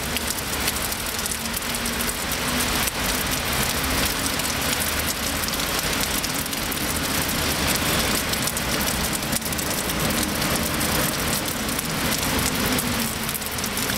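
Steady rain falling on a wet stone-paved square, an even hiss of drops on the paving, with faint traffic hum underneath.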